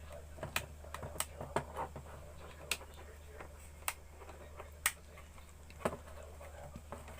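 Sharp, irregular clicks and taps of small plastic phone parts being handled and pressed together during reassembly, over a steady low hum.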